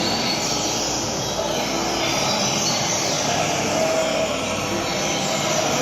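Steady loud rumble and hiss of outdoor background noise, like traffic, with a few faint short high bird notes over it.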